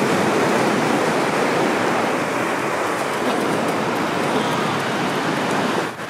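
Ocean surf breaking and washing up a sandy beach: a steady rush of noise.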